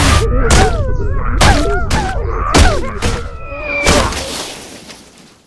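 Cartoon sound effects of a giant snowball tumbling and crashing to the ground: about half a dozen thuds and whacks over four seconds, with the buried characters' wobbly, rising-and-falling yelps and groans between them. It fades away over the last second or so.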